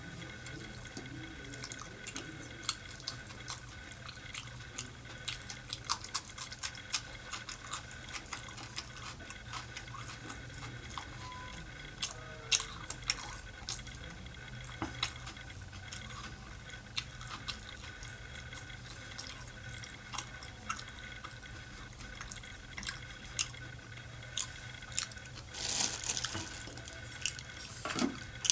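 Close-miked wet chewing and lip-smacking of a mouthful of chicken qorma: many short, sharp smacks and clicks, irregular, a few each second. Near the end comes a brief louder rustle.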